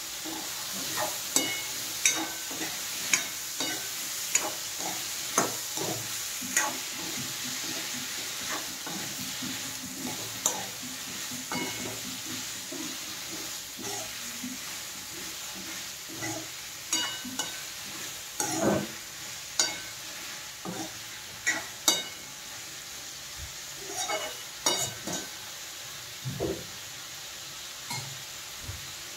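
Metal spoon stirring diced bottle gourd in a metal kadhai of hot oil, scraping and knocking against the pan about once a second at first, then in irregular clusters, over a steady sizzle of frying.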